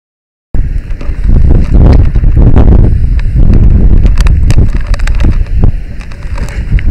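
Loud low rumbling noise on a helmet camera's microphone in the smoke of a burning house, with scattered sharp cracks and knocks. It starts abruptly about half a second in, after a moment of silence.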